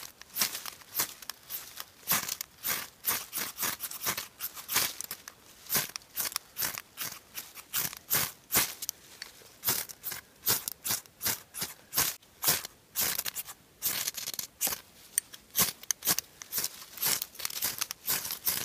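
A striker scraped repeatedly down a ferrocerium fire steel over damp grass and leaf tinder: sharp, high scrapes at about two a second. The sparks do not light the tinder on this first attempt.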